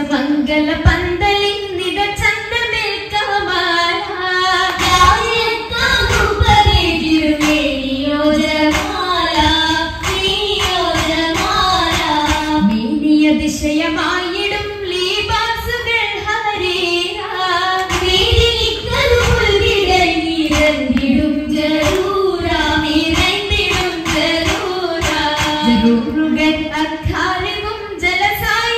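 A group of girls singing a Mappila song in unison, the traditional song that accompanies an Oppana dance; the melody rises and falls in a continuous line.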